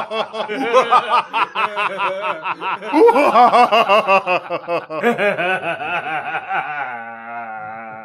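Men laughing hard in repeated bursts, ending in a long drawn-out voiced note that fades out near the end.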